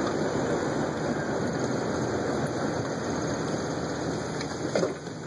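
Cabin noise of a 1995 Jeep Wrangler coasting slowly: a steady rumble of engine and tyres, easing off near the end.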